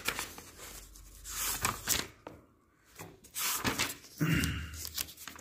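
Pages of a thick printed textbook being flipped and rustled by hand, in two runs of dry paper swishes with a short pause between them and a soft bump near the end.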